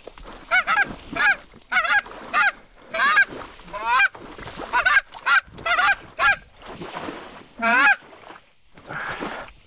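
Goose honking: a quick, irregular series of about a dozen loud honks and clucks, then one longer drawn-out honk near the end.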